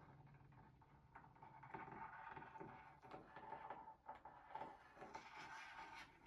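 Near silence: faint scattered clicks and soft scratching over a faint steady hum.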